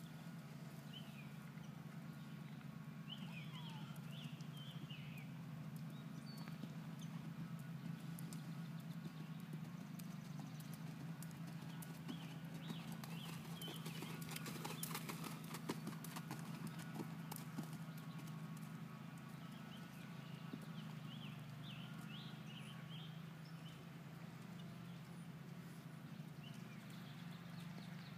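A horse cantering on a sand arena, its hoofbeats loudest as it passes close about halfway through, over a steady low hum.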